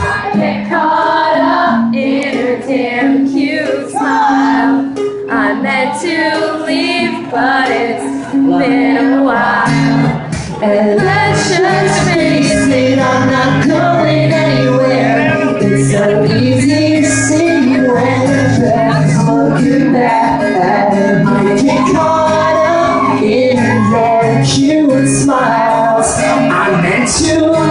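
Live rock band playing a song, with guitars and voices singing. About ten seconds in, the full band comes in louder with a strong bass line.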